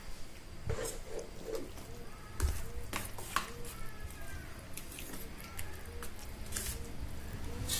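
Thick semolina batter being mixed by hand in a steel bowl: wet squishing with scattered clicks and taps against the bowl.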